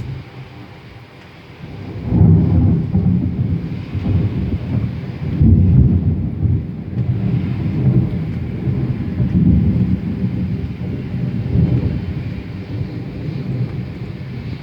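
Thunder rumbling after a lightning strike: a loud low rumble breaks in about two seconds in and rolls on in several surges, slowly easing toward the end.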